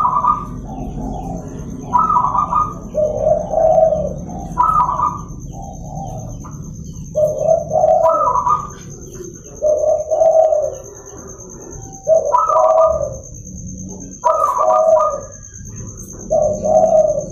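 Zebra doves (perkutut) cooing: a run of repeated coo phrases, about one every two seconds.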